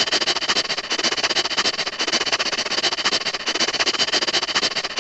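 A dog making a fast, even run of scratchy clicks, several a second.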